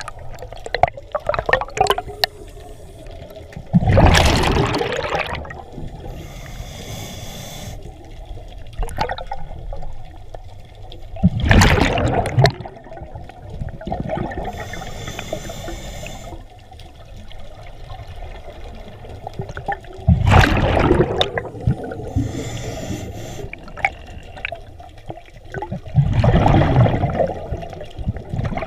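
A scuba diver's breathing heard underwater: four loud gushes of exhaled bubbles from the regulator, about every seven to eight seconds, with a fainter hiss from the regulator in between as the diver breathes in.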